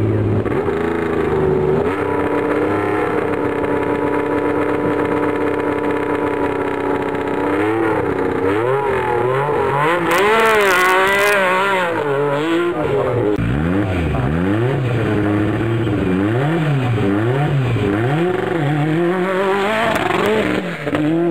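MG Metro 6R4's 3.0-litre V6 rally engine held at a steady fast idle, then revved up and down again and again from about seven seconds in. Near the end another rally car runs past.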